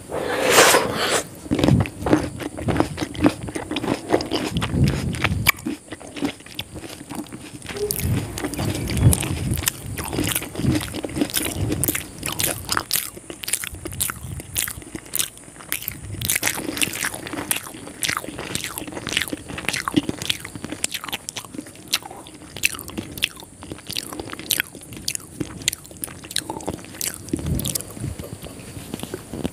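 Close-miked eating sounds of biting into crispy fried chicken lollipops and chewing: a dense run of crisp crunching clicks, loudest about a second in and again around nine seconds in.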